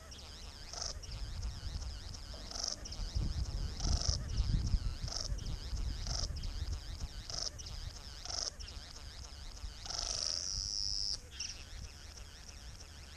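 Male satin bowerbird's courtship display song: a run of short, repeated calls about once a second, then one longer call lasting about a second near the end.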